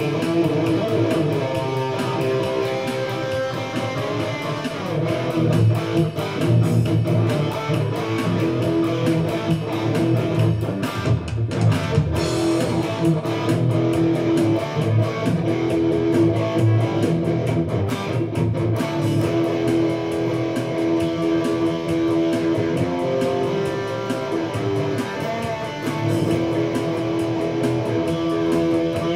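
Electric guitar playing an instrumental passage of a song, with notes held for several seconds over a steady lower part.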